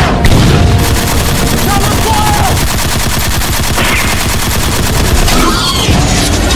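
Machine-gun fire sound effect: long, rapid bursts of automatic gunfire.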